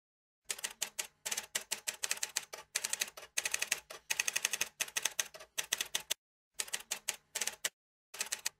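Typewriter keys clacking in rapid runs of keystrokes, a typing sound effect. The keystrokes begin about half a second in and stop briefly twice, once past the middle and again near the end.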